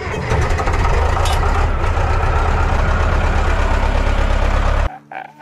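Old diesel engine on a tracked machine running roughly in a very cold start, kept firing on starting ether sprayed into its air intake. The engine sound cuts off suddenly near the end.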